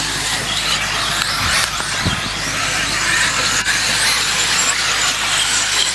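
Several 1/10-scale electric 4WD RC buggies racing together, giving a dense, high-pitched whine of motors and drivetrains that rises and falls with the throttle.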